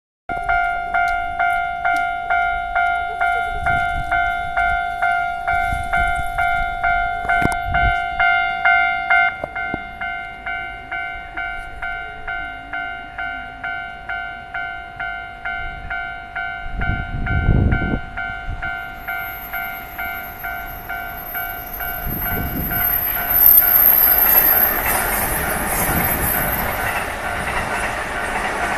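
Japanese level-crossing alarm ringing its electronic two-tone ding about twice a second; it drops in level about nine seconds in. From about 19 seconds in, the noise of a passing Keio Line train rises over it, with a high-pitched whine, while the alarm keeps ringing.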